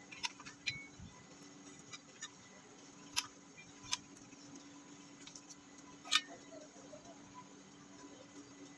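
A few sharp, irregular metal clicks and taps as a steel cleaver blade is set and shifted in the jaws of a bench vise, over a faint steady hum.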